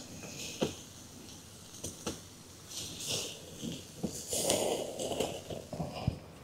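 Faint handling sounds: scattered light clicks and knocks, with brief rustling or hissing about three seconds in and again about four and a half seconds in.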